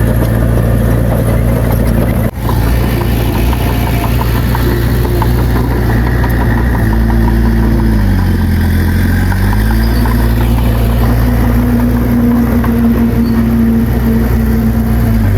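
Heavy earthmoving machine's diesel engine running steadily and loudly. About eight seconds in, its pitch sags for a second or so and then climbs back.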